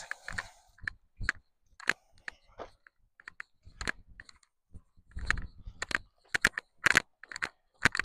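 Footsteps crunching on rough ground as a hiker walks, an uneven string of short crunches about two a second.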